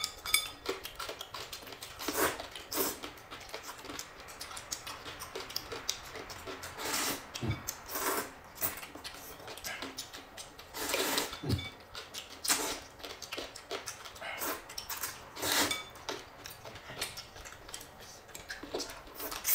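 Bowls of noodle soup being slurped and chewed, with a light clink of chopsticks on the bowls. Short slurps come every few seconds.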